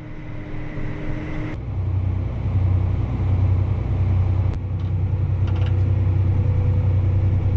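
Engine running steadily with a deep hum, getting louder about a second and a half in, while a grain cart unloads corn into a grain truck.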